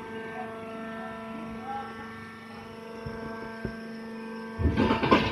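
Hydraulic cottonseed baler running: its motor and pump give a steady hum made of several fixed tones. Near the end there is a short, loud rattling noise.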